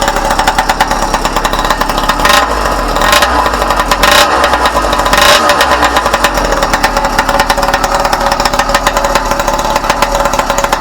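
A motorized bicycle's small engine running, cracking and popping, with four short throttle blips in the first half.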